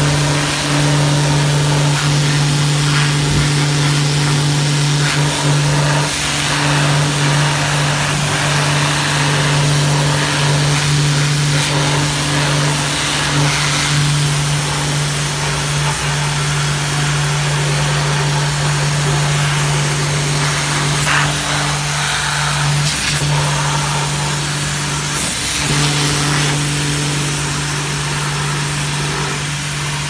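Pressure washer spraying water onto an air conditioner's belt-driven blower wheel for cleaning: a steady machine hum under the hiss of the water jet. The hum dips briefly twice in the last third.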